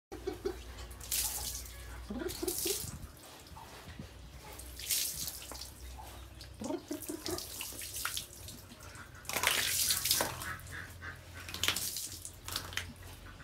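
Water thrown from a plastic bowl splashing over piglets and the concrete floor of a pen, in several separate splashes, the longest about two-thirds of the way in, with a few short grunts from the pigs.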